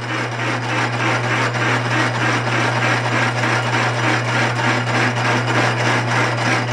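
Hole saw turning in a South Bend 9-inch lathe, cutting a notch into the end of a 1.5-inch metal tube under power feed: a steady motor hum under a continuous, even cutting noise of the saw teeth in the metal.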